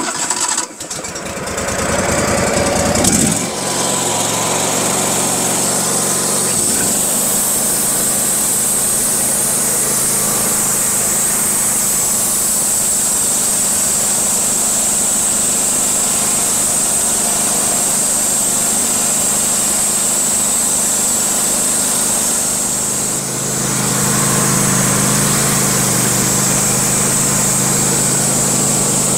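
Wood-Mizer portable band sawmill starting up: the engine catches and revs up over the first few seconds, then runs steadily with a constant high whine. About two-thirds of the way through the sound dips briefly, then comes back fuller and lower.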